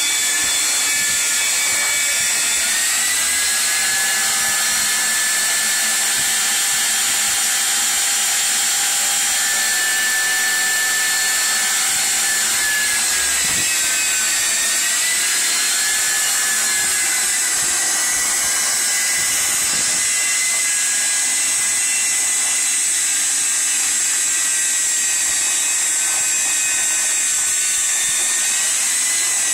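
Shop vacuum running steadily: a high motor whine over a rush of air, the whine wavering briefly in pitch about halfway through.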